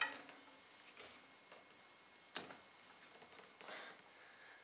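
Quiet handling noise of a rubber band cut from a bicycle inner tube being stretched and twisted around plastic-coated garden canes: a click at the start, a sharper tap about two and a half seconds in, and a soft rustle near the end.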